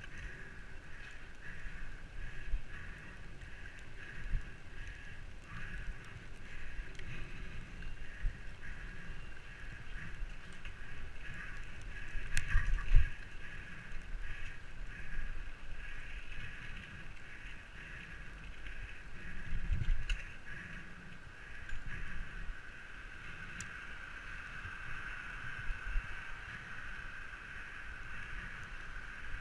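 Mountain bike ridden downhill, heard from a camera on the bike or rider: a steady hiss of rolling and moving air, with low rumbling and knocks from the tyres on rough ground. Louder jolts come about twelve seconds in and again near twenty seconds.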